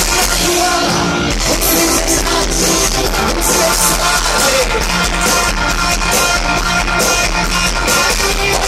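Live rock band playing, with a lead vocal over electric guitar and keyboards, heard loud from within the concert crowd.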